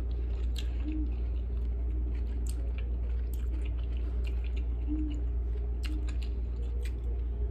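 A person chewing a mouthful of food, with scattered short mouth clicks, over a steady low hum.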